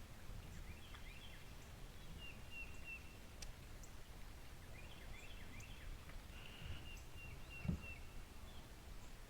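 Quiet open-air background with a bird calling in several short runs of quick, high chirps, and a single dull low thump about three quarters of the way through.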